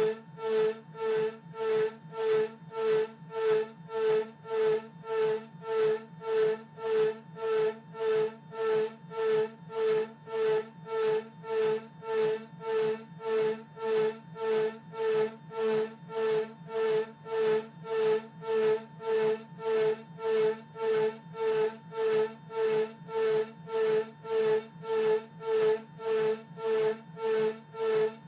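Desktop CNC mill's end mill cutting an aluminium blank turning in a rotary chuck: a steady pitched whine with a rasping edge that swells and fades evenly about twice a second as the cutter bites.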